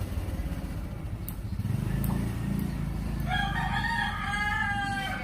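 A rooster crowing once, a single long call starting a little past three seconds in and dropping in pitch at its end, over a steady low rumble.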